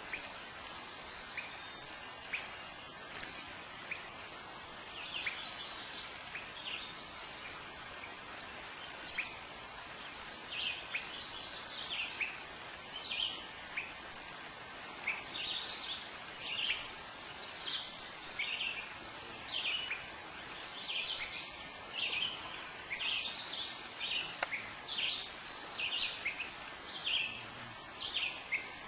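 Songbirds singing: many short, high chirping notes that drop in pitch, repeated and overlapping, sparse at first and much thicker from about five seconds in, over a soft steady background hiss.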